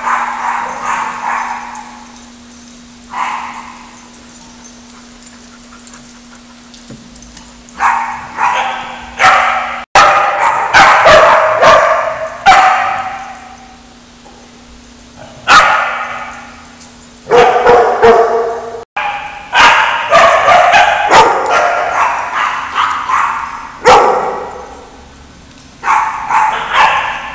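Dogs barking repeatedly in loud clusters, each bark ringing on in the echo of a hard, tiled room, with a faint steady low hum underneath.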